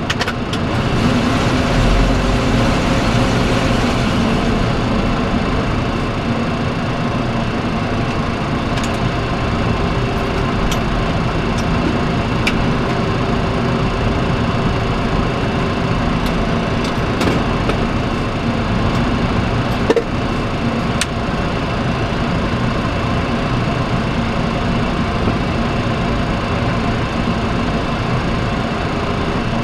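Boeing 737-300 taxiing, heard from inside the cockpit: a steady hum of its CFM56 turbofans at taxi power, with a few light clicks. A brighter hiss swells about a second in and fades after a few seconds.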